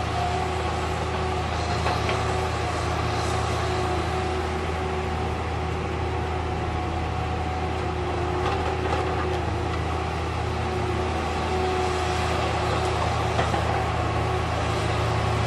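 Heavy logging machinery running steadily: the Barko 595ML log loader and the CSI DL 4400 slasher saw give a low engine drone with a steady whine above it and a few faint knocks.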